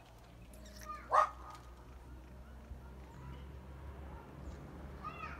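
An animal's single sharp bark about a second in, with a fainter call near the end.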